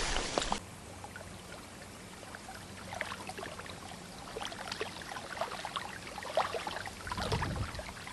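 Faint river water trickling and lapping, with scattered small ticks and spatters over a steady low hiss.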